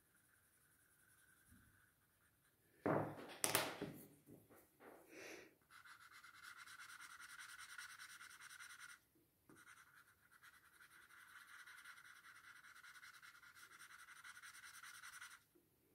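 A few knocks about three seconds in, the loudest sound here, as a pencil is put down on a wooden table and a drawing tool is picked up. Then a faint, steady scratchy rubbing of quick back-and-forth strokes as a pen-shaped tool smooths graphite shading on paper on a clipboard, with a short break about nine seconds in.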